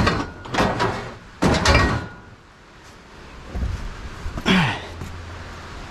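Scrap metal pieces clanking and scraping against each other as they are pulled out of a jumbled pile by hand: three loud clatters in the first two seconds, then a lighter knock and a metal scrape with a falling tone near the end.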